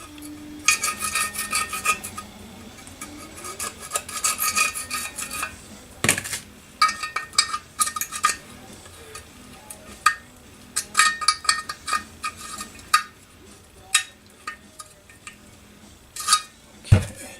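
A drill bit scraping old sealer out of the water intake plug bore in a Johnson 5.5 hp outboard's lower unit housing: metal-on-metal scraping in several runs of quick strokes with pauses between them. A sharp knock sounds near the end.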